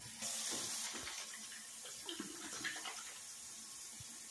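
Kitchen tap turned on, its water running steadily into a stainless steel sink while hands are rinsed under the stream.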